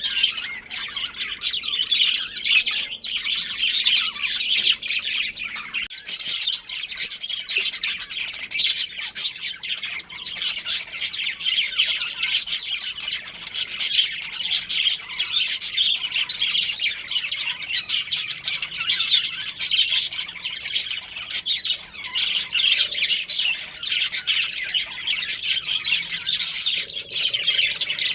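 Budgerigars chirping and warbling without pause: a dense run of short, overlapping high chirps with the odd squawk.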